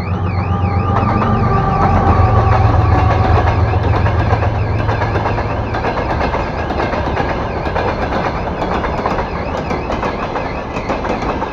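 A heavy motor vehicle's engine passing close by, with a low hum loudest about two seconds in that fades away after about six seconds, under steady road and wind noise.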